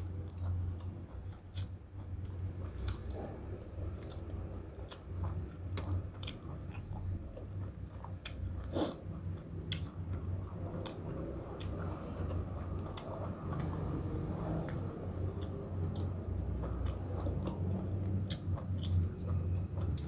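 Close-up chewing and biting of sticky rice and spicy pork salad, with many small wet mouth clicks and crunches scattered throughout, over a steady low hum.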